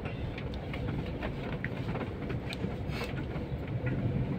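Steady background traffic noise, with scattered light clicks and knocks.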